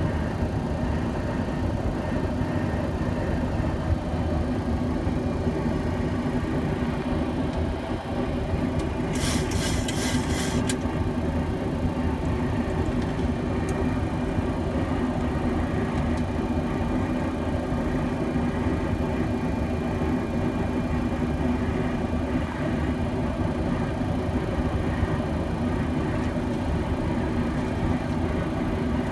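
Steady in-flight flight-deck noise of a Boeing 737-700: a constant rush of airflow and engine noise with a steady low hum underneath. About nine seconds in, a short run of quick, evenly spaced high clicks lasts under two seconds.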